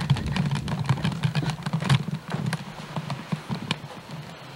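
Camcorder handling noise: an irregular run of quick clicks and knocks over a steady low hum, as the camera is moved about.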